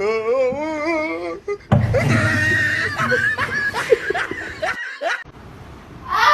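A long wavering call, then people laughing and talking.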